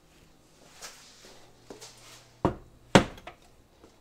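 Heavy cast iron skillet set down on a glass-top electric stove: two hard clunks about half a second apart, the second louder, with a few light knocks around them.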